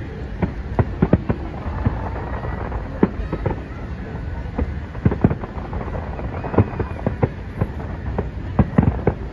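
Aerial fireworks display: shells bursting overhead in a rapid, irregular series of bangs and crackles, coming in clusters every second or two over a steady background noise.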